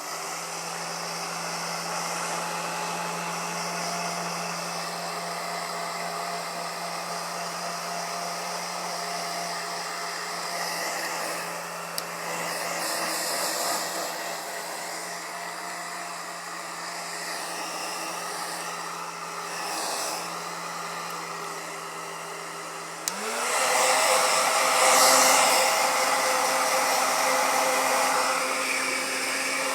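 Handheld hair dryer running with a steady motor hum and rush of air. About three-quarters of the way through, the motor speeds up with a rising pitch and the blowing grows louder, as if switched to a higher setting.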